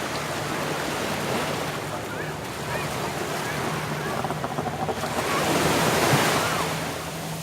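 Sea waves breaking and washing up on the beach, the surge swelling loudest about five to six seconds in, with wind buffeting the microphone. A faint steady low drone runs underneath.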